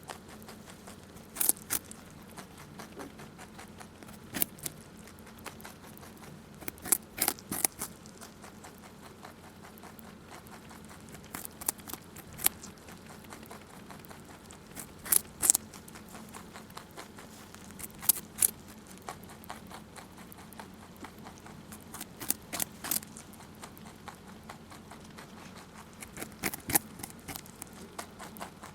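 Rabbit chewing a raw carrot: crisp, irregular crunches, often in quick clusters of two to four bites, between quieter stretches of softer munching.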